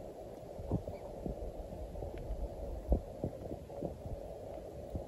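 A low wind rumble on the microphone, with a handful of soft, irregular thumps.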